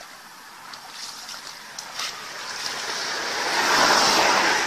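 Shallow paddy water splashing and sloshing as a cone-shaped bamboo fish basket is pushed down into it. A few light splashes first, then the sloshing swells to its loudest about four seconds in.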